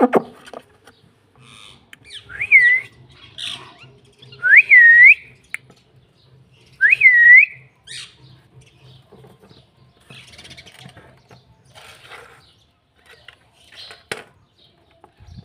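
Rose-ringed (Indian ringneck) parakeet giving three short whistles a couple of seconds apart, each dipping and then rising in pitch, amid faint scratching and rustling.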